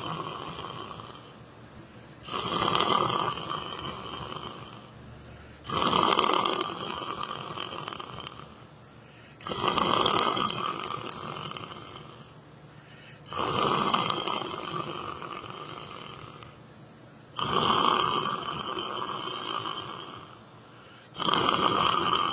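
A person snoring in a slow, regular rhythm: six snores, one every three and a half to four seconds. Each starts suddenly loud and fades over a couple of seconds.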